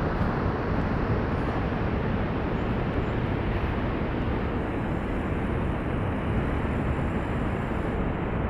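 Steady rushing roar of distant falling water, the Yellowstone River's falls and rapids in the canyon, even and unbroken.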